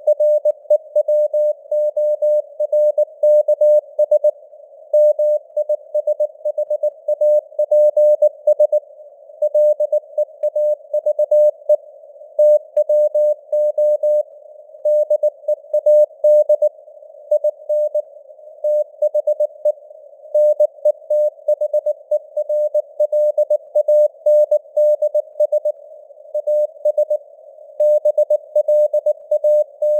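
Morse code (CW) sent at 19 words per minute: a single mid-pitched tone keyed on and off in dots and dashes, inside a narrow band of simulated radio hiss. The signal strength fades up and down (QSB), as on a shortwave receiver.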